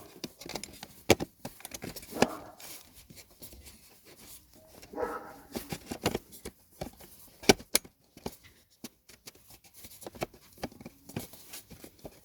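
Hard plastic clicks and knocks as a replacement headlight switch is pushed and worked, one-handed, into its opening in the dashboard, not yet seating. Two short pitched sounds come about 2 and 5 seconds in.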